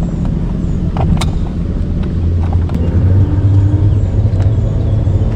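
An engine running steadily with a low hum, a little louder from about two seconds in, while the boat is worked onto its trailer; a couple of light clicks about a second in.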